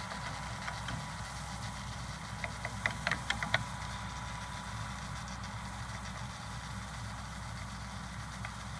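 Engine running steadily at an even pitch, with a quick run of sharp clicks about three seconds in.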